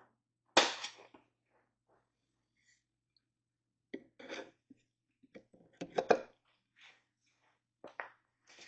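Wooden barstool parts knocking and clattering as a stretcher rail is handled and fitted between the legs: a series of short knocks, the loudest about half a second in, with clusters around four and six seconds in and again near the end.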